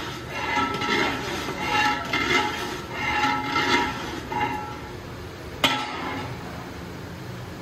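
A long metal ladle scraping and knocking against a hammered-aluminium deg, each stroke leaving a short metallic ring, about twice a second. The strokes stop, and one sharp clank comes a little past halfway.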